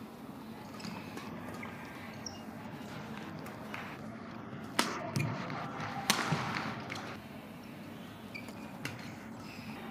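Badminton rackets striking a shuttlecock during a rally, with two sharp loud hits a little over a second apart near the middle and fainter ticks before and after, over the steady background of a large sports hall.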